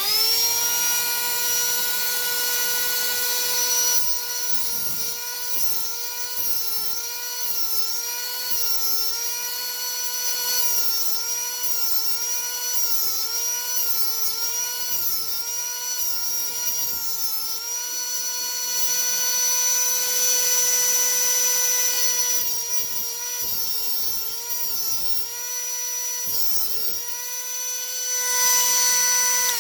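Sharpie tungsten grinder's electric motor spinning up and running with a high whine while a tungsten electrode is ground to a point. Its pitch dips and wavers again and again through the middle as the electrode is pressed and twisted against the disc.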